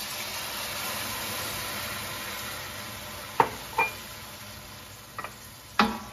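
Beef stock hitting a hot stainless steel sauté pan of onions, garlic and olive oil, sizzling and hissing loudly at first and slowly dying down. A few sharp knocks of utensils against the pan in the second half as stirring begins.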